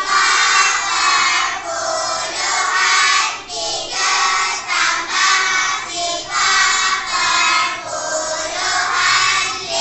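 A class of young children chanting together in sing-song unison, in rhythmic phrases.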